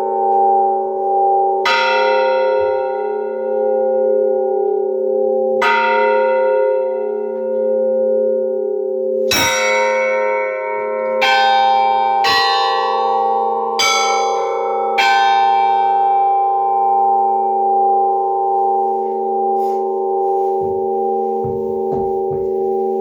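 Bells ringing: single strikes that ring on and overlap, two slow ones at first and then a quicker run of about six in the middle, over a steady held low drone.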